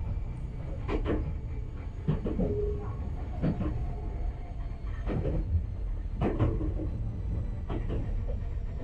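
Enoshima Electric Railway train running, heard from on board: a steady low rumble with irregular knocks and creaks every second or so.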